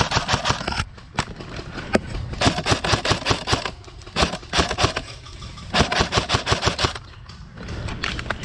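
Airsoft guns firing several bursts of rapid full-auto shots, each burst a quick run of sharp clicks lasting about half a second to a second and a half, with short pauses between.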